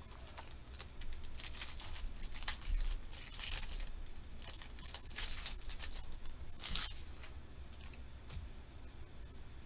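Foil wrapper of a Pokémon booster pack crinkling and being torn open in a series of short rips, the loudest about three and a half, five and seven seconds in, quieter toward the end.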